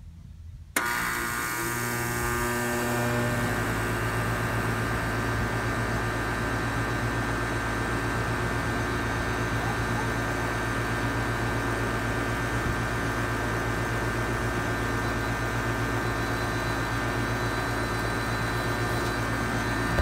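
Nordyne central air conditioner's outdoor condensing unit switching on about a second in: the compressor and condenser fan start with a sudden jump in level, the pitch settling within a few seconds as the fan comes up to speed, then running steadily with a strong electrical hum.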